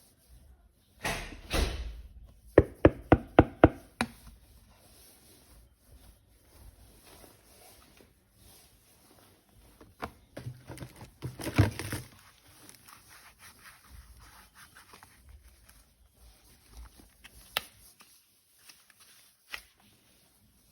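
Hard plastic parts of toy guns being handled: a brief rustle, then a quick run of about six sharp clicks, another rustling burst later and scattered single clicks and knocks.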